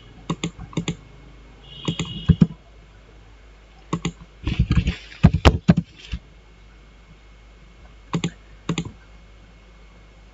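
Computer keyboard typing: a few single key presses, a quick run of keystrokes around the middle, then two more single presses later on.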